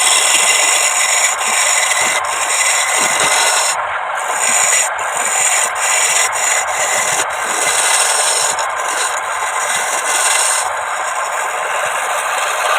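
Wooden plate turning on a homemade wood lathe while its surface is worked: a steady dry rubbing scrape.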